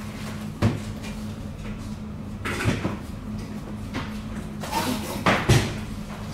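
A few short knocks and clunks over a steady low hum, with a loud double knock near the end.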